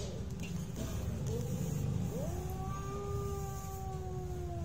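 Domestic tabby cats yowling in a territorial standoff. There is a short low yowl about a second in, then one long drawn-out yowl from about two seconds in that slowly falls in pitch. A steady low rumble runs underneath.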